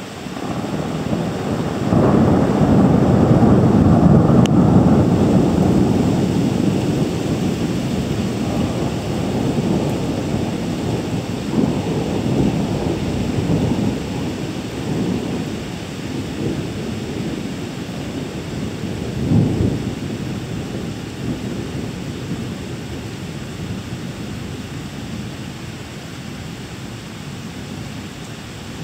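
Rolling thunder: a long, low rumble that swells sharply about two seconds in and dies away slowly, with a shorter second peal about two-thirds of the way through, over a steady hiss of rain.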